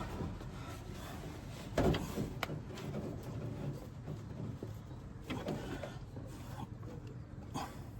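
Hand-tightening an oil pressure sensor on an engine block: a sharp knock about two seconds in and another shortly after, then softer scrapes and fumbling over a low steady hum.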